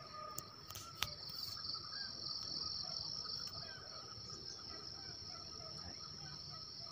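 Insects chirring in a steady high-pitched drone with a fast pulsing texture. A few sharp clicks come about a second in, over low irregular rustling.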